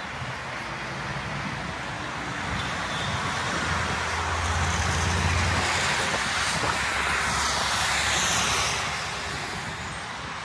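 Road traffic passing: a rushing noise that swells over several seconds, peaks a little after the middle, and fades near the end.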